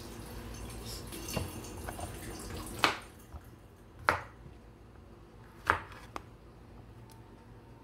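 Chef's knife slicing through a zucchini and striking a wooden cutting board: four sharp chops spread over the second half, each a second or so apart, the last two closer together. Before them, a steady hiss for about the first three seconds.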